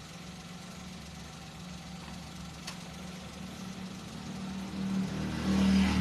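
Car engine idling steadily, its hum growing louder in the last second or so.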